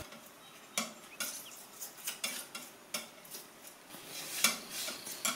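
Paint being worked on a studio palette with a small hand tool: irregular short scrapes and clinks, spaced a fraction of a second to a second apart.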